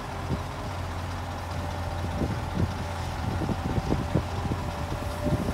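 Volvo wheeled excavator's diesel engine running steadily as the machine lifts and swings a loaded bucket of soil. A faint steady whine rides over the engine, and a few light knocks come in the middle.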